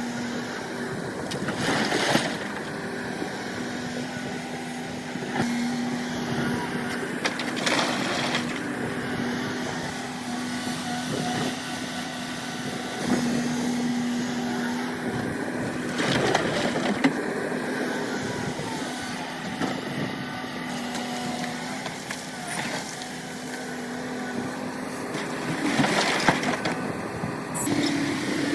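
Excavator's diesel engine running steadily under load, with four loud grinding crunches spaced several seconds apart as the bucket digs into rock.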